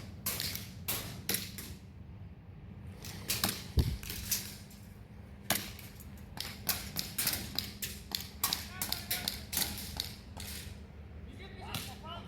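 Airsoft guns firing: sharp single cracks in short strings, with a dense run of rapid shots from about six to ten seconds in.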